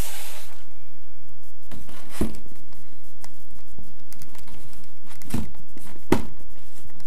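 Clear plastic blister tray of a boxed action figure being handled and lifted: a rustle at the start, then crinkling with a few sharp clicks and knocks, about two seconds in and twice near the end.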